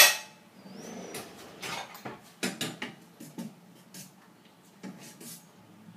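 Kitchenware clatter as red bean soup is dished up: a sharp clink of a bowl at the start, then a string of lighter clinks and knocks of a ladle against a stainless-steel pot and a bowl.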